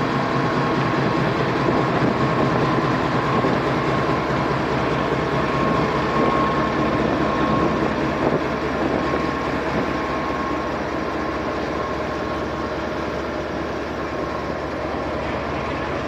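Pakistan Railways diesel locomotive pulling slowly away on departure, its engine running steadily with a steady high whine. The sound eases a little about halfway through as the locomotive moves on and the coaches roll by.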